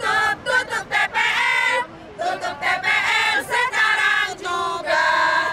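A group of women singing a protest chant together in unison, in phrases with held notes and a short pause about two seconds in.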